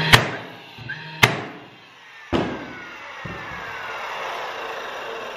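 DeWalt DCN680 20 V cordless 18-gauge brad nailer firing two brads into a pine board about a second apart, each shot a sharp crack just after a brief whir of the nailer's motor. A dull thud follows a little over two seconds in.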